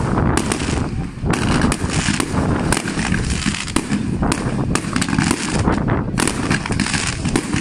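Fireworks display, many shells and comets fired in quick succession: a dense, unbroken run of overlapping bangs and crackles.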